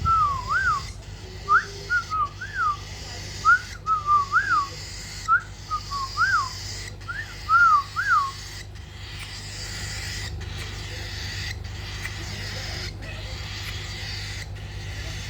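Whistling: short, clear notes sliding up and down in quick phrases, stopping about eight seconds in, over a steady low hum.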